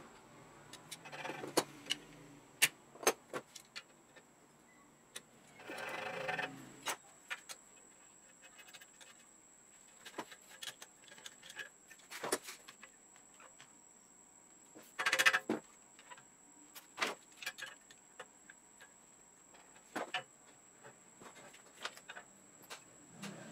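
Scattered metallic clicks, clanks and short scrapes of a large adjustable wrench on a bicycle bottom bracket lockring and of the crankset being fitted to the frame, with a few louder clusters about 1.5, 6 and 15 seconds in.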